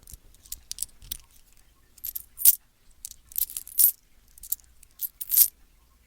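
Loose coins being handled, clinking and jingling in short irregular bursts.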